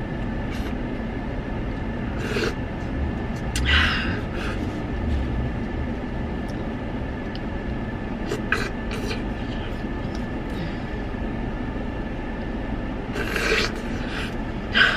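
Short wet slurping and licking sounds of soft-serve ice cream being eaten from cones, a handful of them, the loudest about four seconds in and again near the end, over the steady hum inside a running car.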